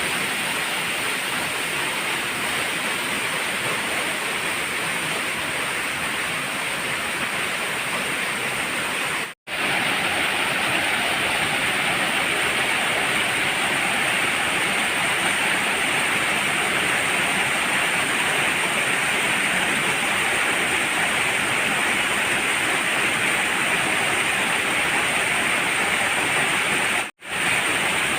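Steady rushing of water from a waterfall and its rocky stream. The sound cuts out for a split second twice, about nine seconds in and near the end.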